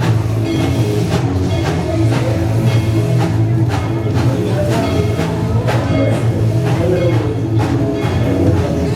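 Music with drums, loud and steady.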